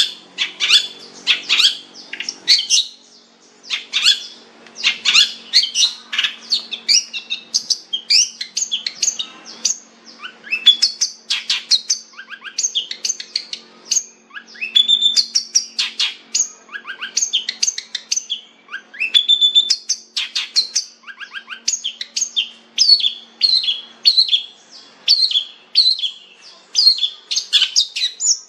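Long-tailed shrike (cendet) singing a fast, varied song of sharp chirps and downward-sweeping whistled notes in quick runs, broken only by short pauses.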